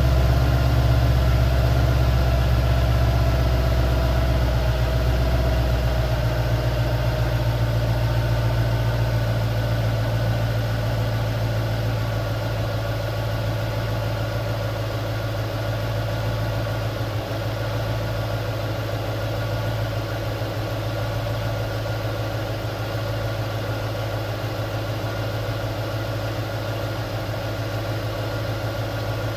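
2012 Ford Mustang GT's 5.0 Coyote V8 idling steadily, freshly filled with new oil after an oil change. About six seconds in, the deepest part of the idle drops away and the sound eases slightly quieter as the idle settles.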